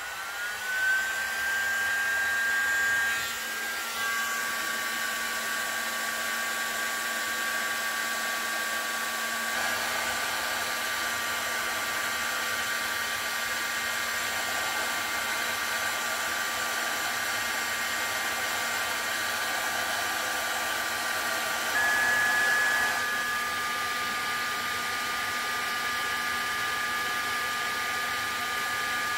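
Electric heat gun running. Its fan whines up to speed at the start, then it blows steadily with a fixed whine, with a brief rise in pitch and loudness about 22 seconds in. The hot air is being used to loosen glue on a small metal part.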